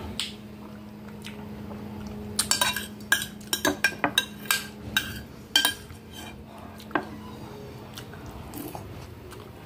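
Metal spoon clinking and scraping against a glass food container while noodle soup is scooped: a quick run of sharp clinks between about two and five seconds in, a few more up to about seven seconds. A faint steady hum sits underneath.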